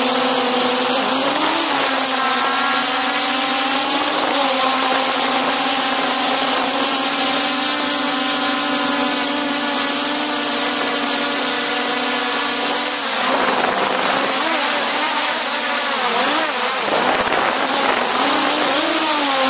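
DJI Mavic 2 Pro quadcopter's motors and propellers whining, heard from a microphone on the drone itself. The pitch holds steady at first, then wavers up and down from about two-thirds of the way in as the drone manoeuvres.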